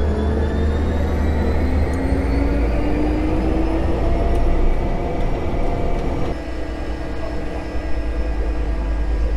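Propeller airplane's engine and propeller running on the ground, heard inside the cabin: a low steady hum with a whine that rises steadily in pitch as the engine speeds up. About six seconds in the sound turns steadier and a little quieter.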